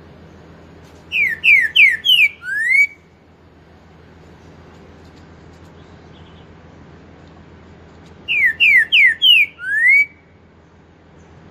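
Green-winged saltator (trinca-ferro) singing its loud whistled song twice. Each phrase is four quick descending notes and a final rising note, the "4 nota boi" song pattern.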